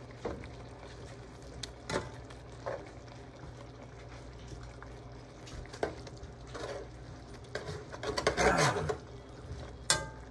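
A metal slotted spatula scraping and knocking against a frying pan while turning slices of luncheon meat in a sticky glaze, with a longer burst of scraping about eight seconds in and a sharp clack near the end.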